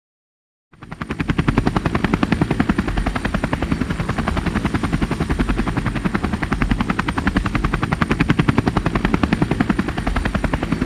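Helicopter rotor chop: a rapid, even beat of blade slaps with a faint high whine, starting just under a second in.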